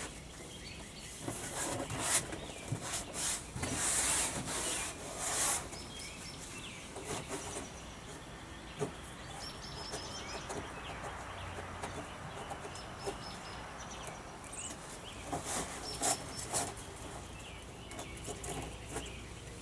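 Rubbing and scraping with a few sharp knocks from parts being handled at a boat console, with faint bird chirps in the background.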